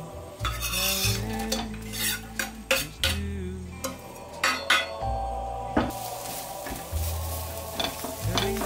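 Metal utensils clinking and scraping against a pan or dish during stirring, with a run of sharp clicks. Food starts sizzling in a hot pan from about six seconds in.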